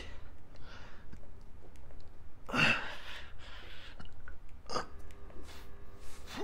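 A man breathing hard through a set of push-ups, a forceful breath out on each rep about every second or two, the strongest a little under three seconds in. It is the strain of the last reps of 100 push-ups.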